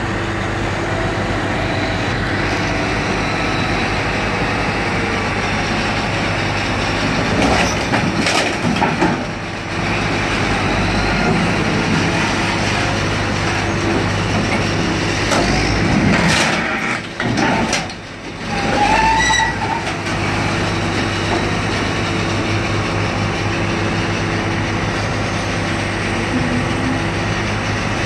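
Heavy equipment engine running steadily at a constant hum. About a third of the way in, and again about two thirds of the way in, metal clanks and bangs sound as a minivan body is set down onto a car crusher's steel bed, followed shortly by a brief squeal.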